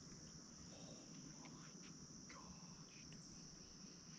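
Faint, steady chorus of insects such as crickets, a continuous high-pitched trill, with a few faint short chirps and ticks over it.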